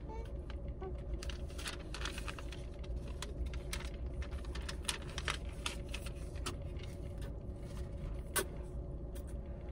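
Steady low hum inside a car with the engine running, overlaid by irregular soft clicks and rustles of paper food wrappers and a receipt being handled.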